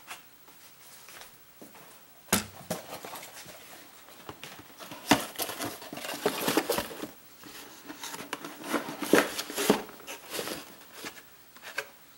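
Cardboard boxes of Ziploc sandwich bags being handled and set into a wooden kitchen drawer: irregular knocks and scrapes of cardboard against the drawer and the other boxes, with a sharp knock about two seconds in and two busier stretches of handling after it.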